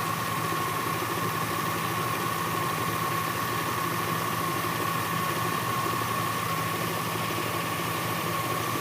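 The 2004 Chevy Avalanche's 5.3-litre V8 idling steadily, with a steady high whine over the engine note.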